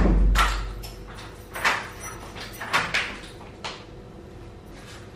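Apartment front door shutting with a loud thud and a short low boom, followed by a few light knocks and rustles as sandals are stepped out of on a tiled floor.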